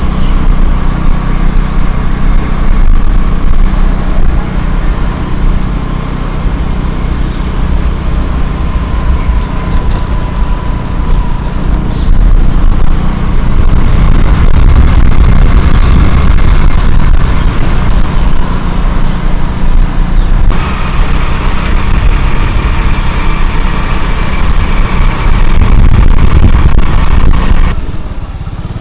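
Motorcycle engine running while riding along a road, its note shifting a few times. The sound drops off suddenly near the end.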